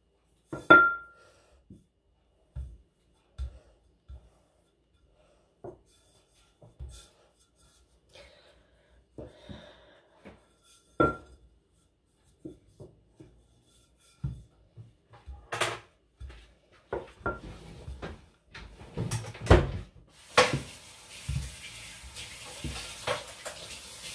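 Stainless-steel rolling pin knocking and rolling over pizza dough on a silicone baking mat: scattered light knocks and clunks, a few with a short metallic ring. The knocks come more often in the last third, when a steady hiss joins in.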